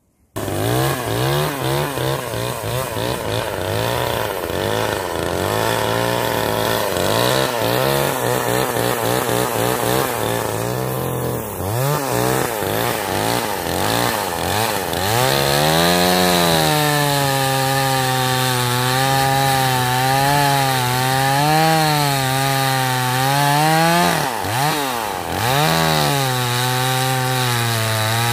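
Small two-stroke gas chainsaw running at full throttle and cutting through a log, its engine pitch dipping and recovering over and over as the chain bites into the wood, with a deeper dip about 24 seconds in.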